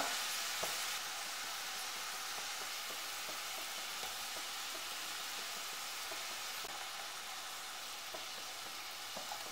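Chopped onion with crushed ginger and green chilli sizzling steadily in hot coconut oil in a kadai, with a few faint crackles.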